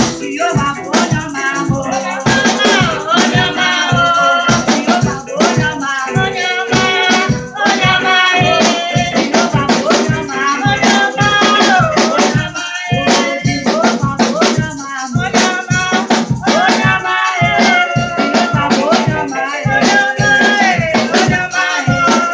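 Live church praise music: voices singing over shakers and a steady percussion beat.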